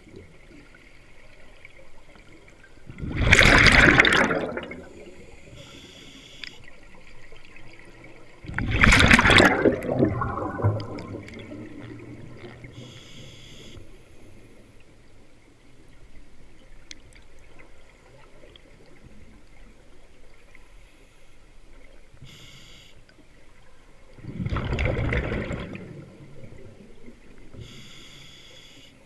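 Scuba diver breathing underwater through a regulator: three loud rushes of exhaled bubbles, the last one weaker, with short faint hisses of the demand valve on each inhale between them.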